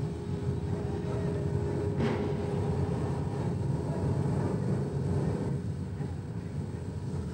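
Steady low rumble of factory machinery, with a faint steady hum over it and a single sharp knock about two seconds in.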